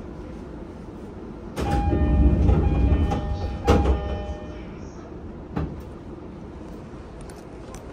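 Side door of a JR East E231-series commuter train sliding open at a station stop: a sudden rush of door noise about a second and a half in with a repeated chime tone over it, a sharp knock as the door reaches its stop, and a smaller click a couple of seconds later, over the steady hum of the stationary car.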